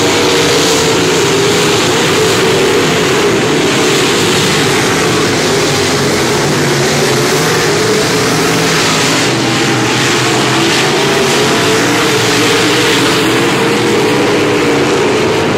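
A pack of dirt-track Modified race cars' V8 engines running hard around the track, loud and continuous, with several engine notes overlapping and wavering in pitch as the cars go by.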